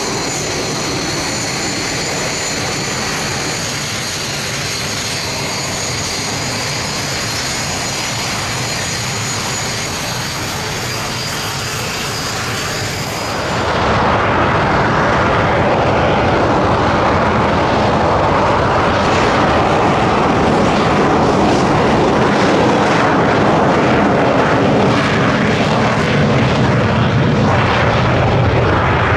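Aircraft engine noise from a flying display: a steady roar with a high whine over it, which changes abruptly about 14 seconds in to a louder, fuller roar without the whine.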